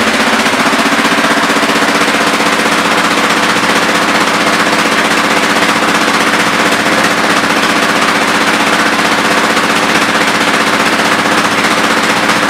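Yamaha Raptor 700R's single-cylinder four-stroke engine idling through an aftermarket exhaust: a loud, fast, even run of exhaust pulses. The engine speed eases down slightly right at the start, then holds steady.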